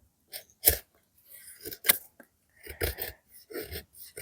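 Folding knife blade cutting into very hard seasoned wood: a run of irregular sharp cuts and scrapes, roughly one every half second to second.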